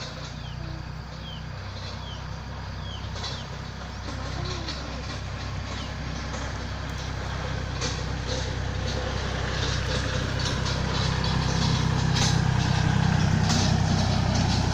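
A motor vehicle's engine approaching, a steady low hum growing gradually louder, with a few short high chirps in the first few seconds.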